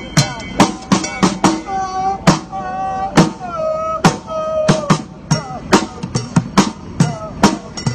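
Street bucket drumming: sticks beating upturned plastic buckets in a quick, busy rhythm of sharp strikes with deeper thuds among them.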